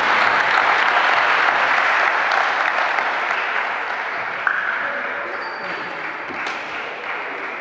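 A crowd applauding, the clapping fading away gradually over the second half, with one sharp tap about four and a half seconds in.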